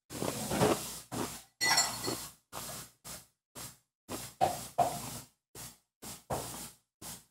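Short bursts of clinking and handling noise from kitchen items, each cut off abruptly with dead silence in between.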